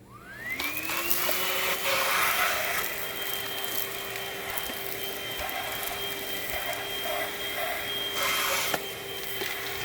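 Hoover ONEPWR Blade cordless stick vacuum switching on: its motor whine rises quickly and levels off within a second or so, then runs steadily with a rush of suction air. The air rush grows louder twice, around two seconds in and near the end.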